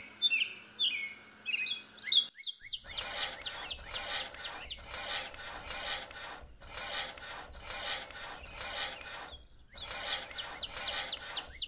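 Birds chirping, then from about three seconds in a repeated rasping, scraping grind in spells of one to two seconds with short breaks, as grass is chopped in a small hand-worked chaff-cutter model.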